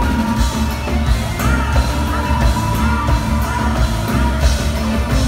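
Live band music with a heavy, steady bass beat on drums, with a woman singing over it.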